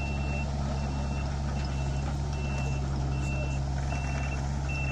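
Mini excavator's backup alarm beeping steadily, a little more than once a second, over the steady low drone of its diesel engine.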